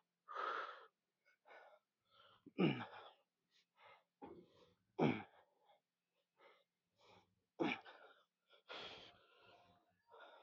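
A man's forceful, strained exhalations and grunts, about every two and a half seconds, with hard breathing between them: the effort of lifting through a set of reps.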